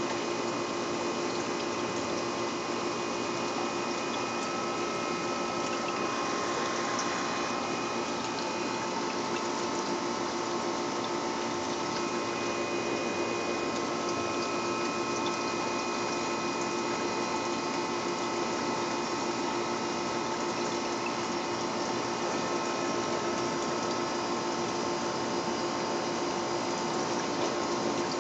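Aquarium filter running: a steady hum with water trickling and splashing from its outflow.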